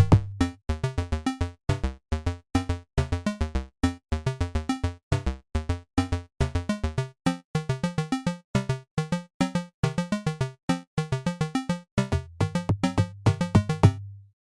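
Electronic synthesizer music: quick runs of short, staccato pitched notes with a bass line, ending in a held low note that fades out about 14 seconds in.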